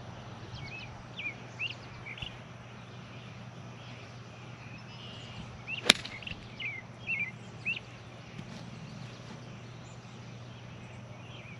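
A single sharp crack of a golf club striking the ball about six seconds in, a tee shot on a par-3, with small birds chirping on and off around it.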